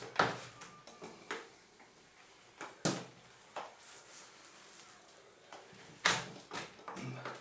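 Scattered short scrapes and knocks from hand texturing with a 10-inch comb tool and wet artex texture compound, a few seconds apart. The loudest come just after the start and about six seconds in.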